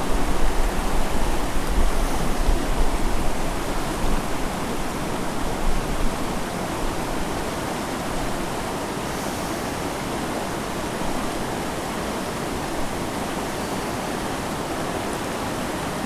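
Small mountain creek rushing steadily over rocks, a constant even wash of water. Low rumbling bumps come through in the first five or six seconds, then the rush settles.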